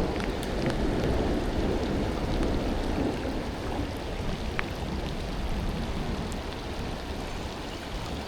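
Steady rain falling, with scattered sharp drop ticks, under the low rumble of distant thunder that slowly fades away.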